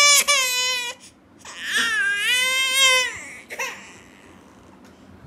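An eight-month-old baby crying in two long cries: the first, already under way, stops about a second in, and the second runs from just under two seconds to about three seconds in, dipping and rising in pitch.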